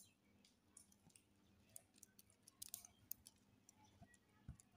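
Faint, scattered clicks of plastic beads knocking against each other as a beaded bag handle is handled and threaded, with a soft knock near the end.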